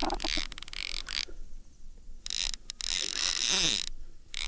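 Baitcasting reel's drag clicking in two rapid bursts, with a short pause between, as a hooked fish pulls line off the loosely set drag.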